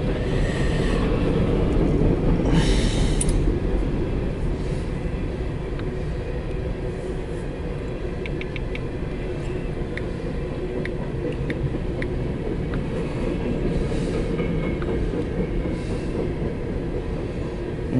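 CSX empty coal train rolling past: a steady low rumble and rattle of empty coal cars on the rails, with a brief hiss about three seconds in and a few faint clicks later on.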